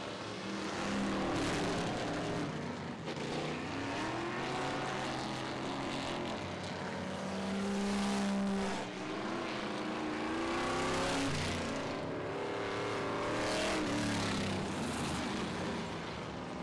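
Several dirt-track race car engines revving and easing off as the cars race around the oval, their pitch rising and falling over and over.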